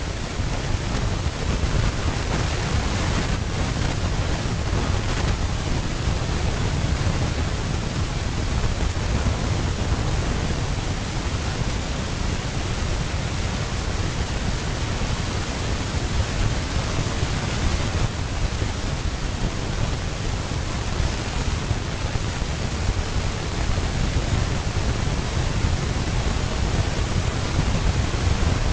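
Steady rushing noise with a flickering low rumble, typical of wind blowing over the microphone; no elephant calls or splashing stand out.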